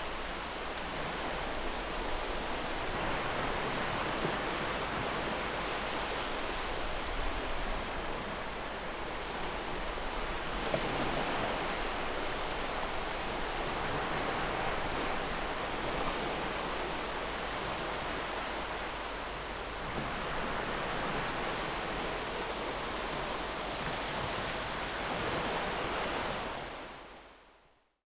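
Ocean surf: a steady wash of breaking waves that fades out near the end.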